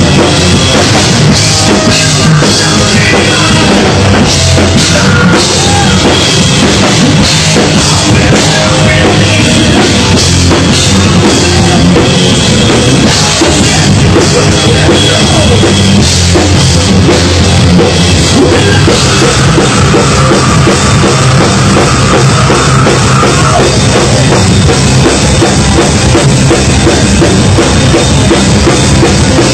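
Loud live heavy rock band playing: electric guitars over a pounding drum kit, steady and dense with no breaks.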